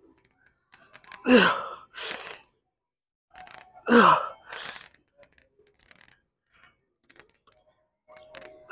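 A man grunting with effort through reps of chest-supported dumbbell rows: two loud grunts falling in pitch, about a second in and about four seconds in, each followed by a shorter breath out, and another grunt begins at the very end.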